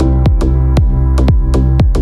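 Electronic background music with a steady beat: deep kick drums that slide down in pitch, sharp percussion hits and sustained synth notes.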